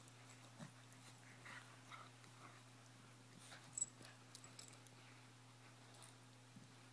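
Two small dogs play-wrestling on carpet: faint dog noises and scuffling, with one sharp click about four seconds in, over a steady low hum.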